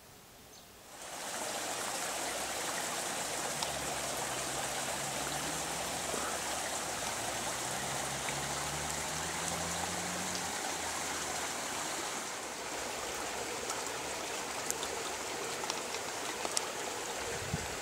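Shallow brook water flowing and trickling steadily, starting about a second in. A faint low hum runs underneath through the middle.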